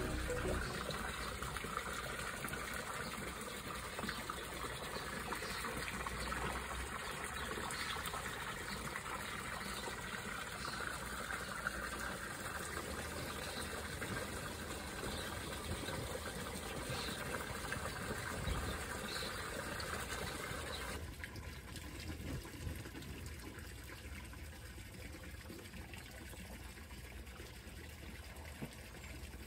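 Steady trickling and splashing of running water from a backyard pond fountain. About two-thirds of the way through it becomes quieter.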